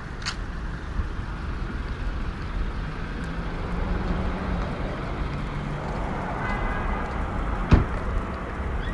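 Steady low rumble of traffic or a vehicle, with one sharp click about three-quarters of the way through.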